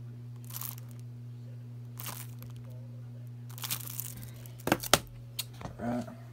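Shrink-wrapped plastic Blu-ray case being handled, its cellophane wrap crinkling in short bursts, then two sharp knocks about two-thirds of the way through as the case is set down on a table. A steady low hum runs underneath.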